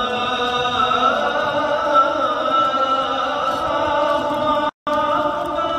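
Chant-like vocal music with long, steady held notes. It cuts out completely for a moment near the end, then resumes.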